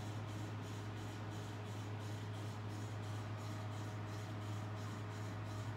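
Steady low hum with a faint even hiss: room tone, with no distinct sound standing out.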